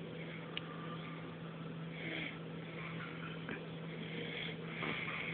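Snoring: slow, noisy breaths swelling about every three seconds, over a steady low hum.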